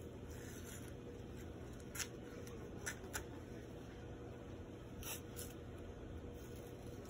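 White athletic tape pulled off the roll and torn by hand while an ankle is wrapped: short crackling rips about two seconds in, two quick ones around three seconds, and a longer pull around five seconds, over a steady low hum.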